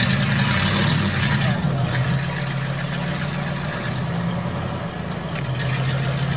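Lifted old pickup truck's engine running while the truck sits stuck in a mud pit, its pitch stepping up and down a little as the throttle is worked, with a hiss over it in the first second or so and again near the end.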